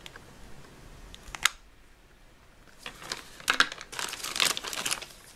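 Plastic wrapping crinkling and a plastic toy cart being handled, with a sharp click about one and a half seconds in and a run of crackling handling noise in the second half.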